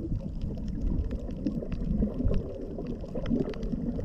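Muffled underwater sound heard through a submerged GoPro Hero6: a steady low rumble of water movement with faint scattered clicks and crackles.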